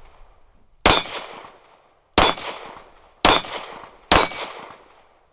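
Four handgun shots fired at uneven intervals about a second apart, each a sharp crack that trails off over about half a second.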